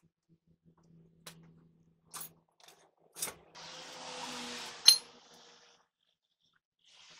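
Metal hand tools working on a truck's wheel hub: a few sharp metallic clicks and taps, then about two seconds of scraping with one sharp, ringing metal clink in the middle.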